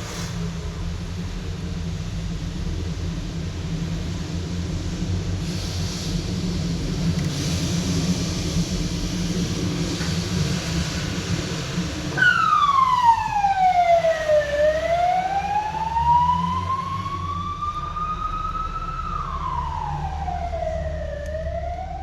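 Emergency vehicle siren wailing, starting about halfway through: a slow tone that falls, rises, then falls and rises again. Under it runs a steady low traffic rumble, with a swell of hiss for a few seconds before the siren starts.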